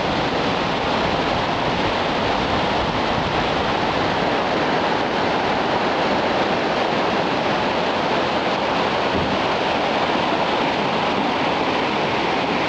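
Flash-flood water rushing down a desert stream bed: a loud, steady roar of fast-flowing water.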